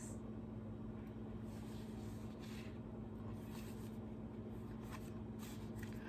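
Quiet room with a steady low hum and a few faint rustles of a board book being handled and opened.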